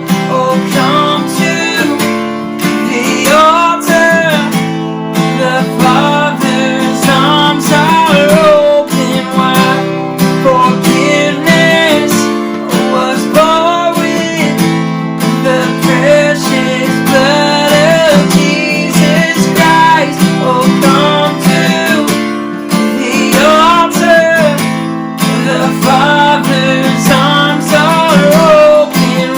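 Worship song music driven by a strummed acoustic guitar, with a wavering melody line over steady chords.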